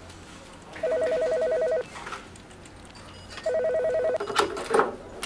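Office desk telephone giving an electronic ring, a fast warbling two-tone trill, twice; the second ring is cut short about four seconds in. Knocks and clatter follow as the handset is fumbled up with boxing gloves.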